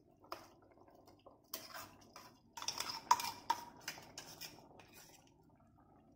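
Metal clinks and scrapes from a stainless-steel mixer-grinder jar being handled and tipped over a clay pot while ground masala paste is scraped out of it. The strokes come in an uneven run, with one brief ringing clink about three seconds in.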